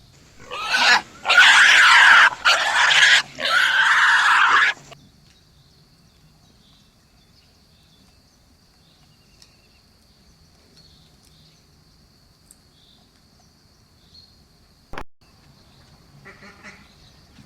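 Duck quacking, four loud, rough calls in quick succession over the first five seconds. Afterwards only a faint steady high-pitched hum, with a single sharp click late on.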